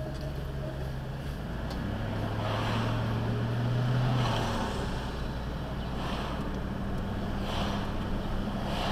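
Vehicle engine heard from inside the cab: a low, steady hum that grows louder about two seconds in as the vehicle pulls away from a stop, then settles as it cruises, with road noise throughout.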